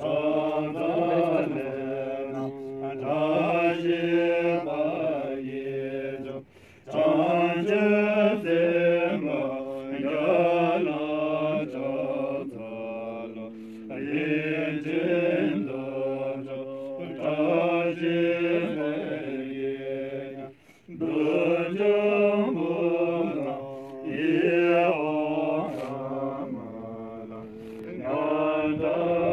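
Drukpa Buddhist monks chanting prayers together from their prayer texts in a steady recitation. It runs in long phrases, with brief pauses for breath about six and twenty seconds in.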